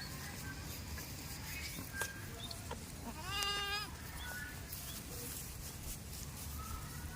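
A goat bleats once, a short wavering call of under a second about halfway through, over a steady outdoor background with a few faint chirps and clicks.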